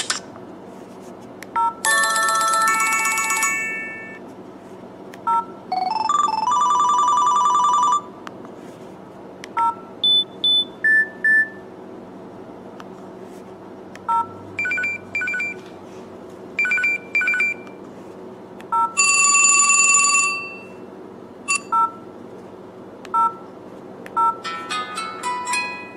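An LG 440G flip phone's small speaker plays a series of short ringtone and alert-tone previews one after another: beeps, short melodies and a ring. Each lasts a second or two and cuts off, with short single beeps between them.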